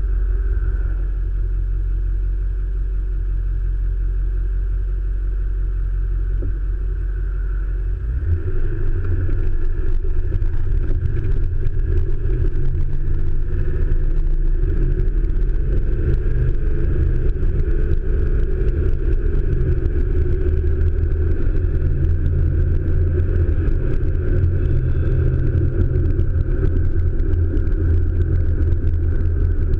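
Ford 1997 F-350's 7.3L Power Stroke turbodiesel V8, fitted with a GTP38 turbo and Wicked Wheel 2 compressor wheel, heard from inside the cab at highway speed. About eight seconds in the engine gets louder as it is put under load and pulls on boost, then holds a steady, heavier drone.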